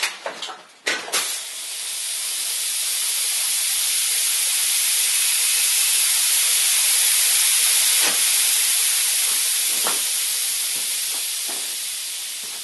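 A few quick squirts of a trigger spray bottle, then a steady hiss of pressurised air escaping from a leaking PEX crimp tee joint, swelling over the first few seconds and slowly fading. The hiss is the sign of a really serious leak at the crimp joint.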